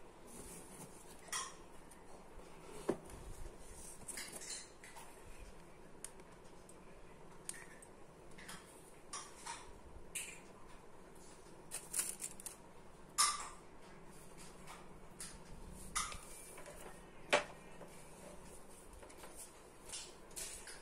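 Small irregular clicks and taps from a Campark ACT76 action camera being handled: fingers pressing its buttons and touching its plastic body, with a couple of sharper clicks past the middle.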